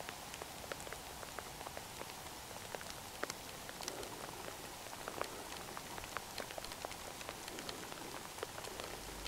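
Steady rain pattering, with many individual drops ticking at irregular moments.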